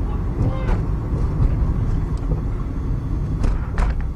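Steady low rumble of a car driving at freeway speed, heard from inside. There is a faint voice about half a second in and two sharp clicks near the end.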